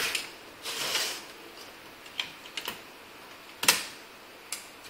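Hands unplugging small plastic cable connectors from an LCD monitor's circuit board and handling its sheet-metal chassis: brief rustling, then a few scattered sharp clicks, the loudest about three and a half seconds in.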